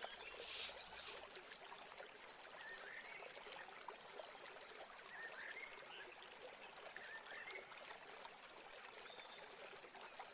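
Near silence: a faint steady hiss of room tone, with a few faint short chirps.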